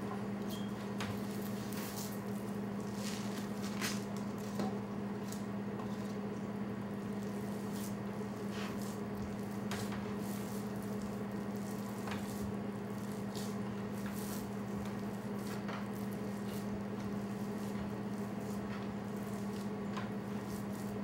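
Hands squeezing and kneading raw ground meat on a cutting board: wet squishing with scattered short squelches and clicks, over a steady low hum.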